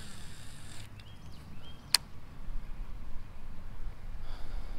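Baitcasting reel's spool spinning as line pays out on a cast, a hiss that stops about a second in. A single sharp click follows about two seconds in.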